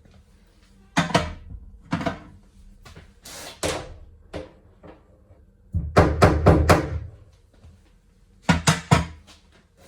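Bursts of sharp clicks and knocks from tools being handled between drilling holes for a door latch, with a longer rapid clattering run about six seconds in.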